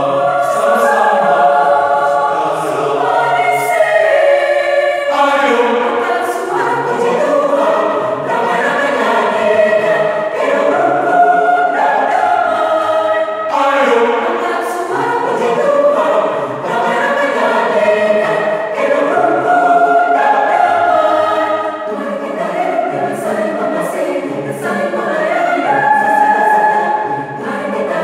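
Mixed choir of men and women singing together in parts, in long sustained phrases with only brief breaks between them.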